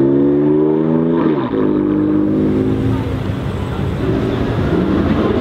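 BMW M4 F82's twin-turbo straight-six with an Akrapovic exhaust accelerating away, its pitch climbing steadily. About a second and a half in, the pitch drops sharply at an upshift. The engine then climbs again and fades, giving way to a steady noisy rumble.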